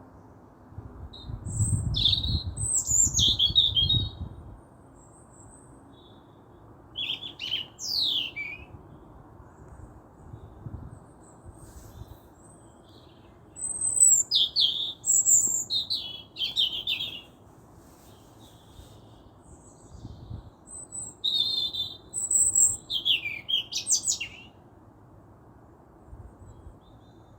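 Songbird singing in short, varied phrases of high chirps and trills, about five phrases with pauses of a few seconds between them, over a faint steady background hiss.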